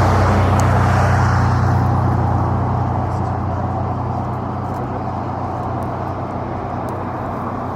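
Jet aircraft engines running loud and steady with a deep hum, slowly fading after about two seconds as the aircraft moves away.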